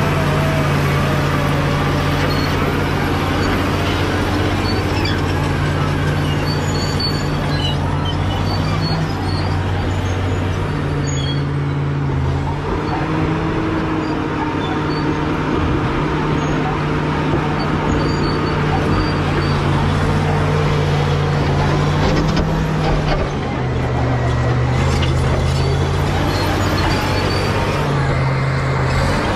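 Caterpillar D7G bulldozer's diesel engine running under load, its pitch dropping and rising a few times as the engine speed changes.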